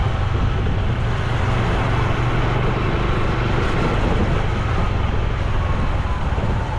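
Honda Super Cub C125's single-cylinder four-stroke engine and exhaust running steadily while riding, with wind and road noise over the camera.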